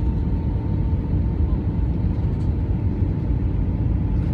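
Airbus A320 cabin noise on approach: a steady, loud, low rumble of the engines and the air rushing past the fuselage, with a faint steady high tone on top.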